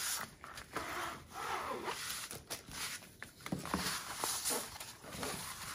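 A diamond painting canvas and its clear plastic cover film being handled and smoothed by hand, rustling and crinkling irregularly.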